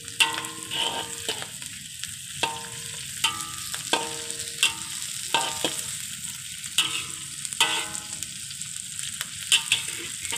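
Ikan bilis (dried anchovies), shallots and chilies sizzling steadily in hot oil in a wok while a metal ladle stirs them. The ladle scrapes and knocks against the wok about a dozen times, each knock ringing briefly.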